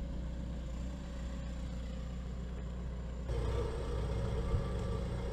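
Diesel engine of a large military rough-terrain forklift running steadily, louder from about three seconds in, with a reversing beep starting near the end.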